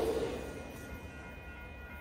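Metrolink commuter train passing, its rail and running noise dying away about half a second in. A quieter stretch follows with a few faint steady high tones.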